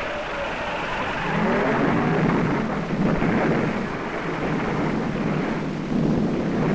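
A car crashing and tumbling down a rocky hillside: a continuous rough rumble without separate crashes standing out, swelling louder about two seconds in and again near the end.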